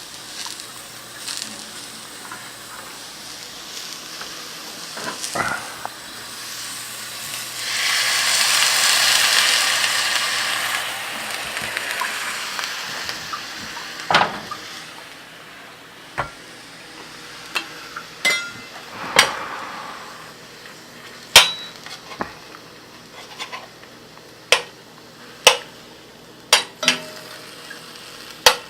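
Food sizzling in a hot pan, loudest for about three seconds around eight seconds in, followed by a series of sharp clinks and knocks of utensils against pots and pans.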